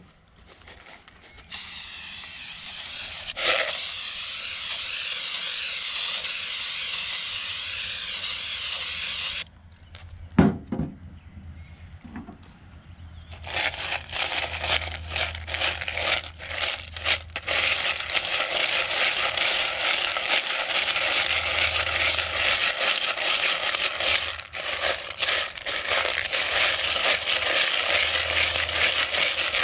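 Aerosol cleaner spraying onto lead air-rifle slugs in a plastic bowl in one long steady hiss. About halfway through a bristle brush starts scrubbing the slugs round the plastic bowl, a fast, rough scraping with the lead slugs rattling against each other.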